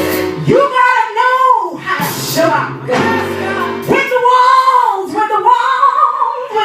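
Gospel worship music: sung voice holding two long, arching phrases over steady instrumental backing.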